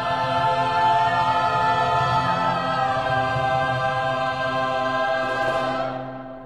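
Mixed choir singing one long held chord, the closing chord of the song, released near the end with the hall's reverberation dying away.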